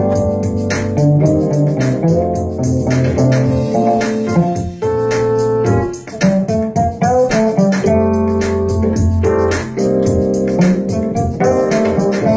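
Instrumental duet of electronic keyboard chords and a cello plucked pizzicato, playing a steady groove.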